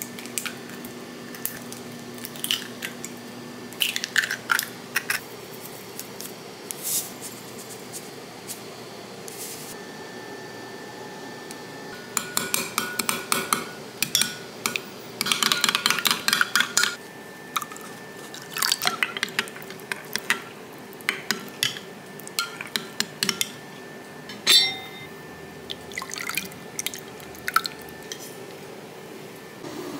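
Metal spoon beating eggs in a glass mug for Korean steamed egg, clinking against the glass in quick runs, with drips of liquid. One louder knock near the end.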